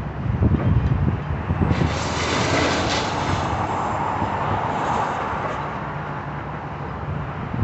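Low rumbling of heavy demolition machinery, with a louder burst of crunching noise from about two to three seconds in.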